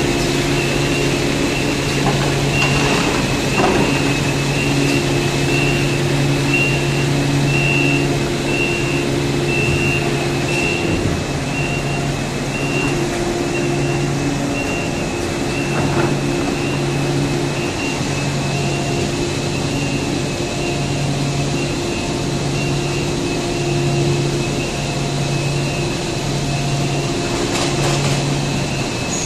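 Steady machinery noise of a running cast stretch film production line, the hum of its extruder and winder drives, with a tone that pulses on and off about once a second.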